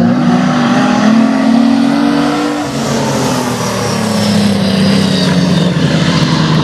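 Six-cylinder speedway sedans racing on a dirt oval, engines running hard. The engine note climbs for the first few seconds, drops, then climbs again about four seconds in as the cars work through the turns.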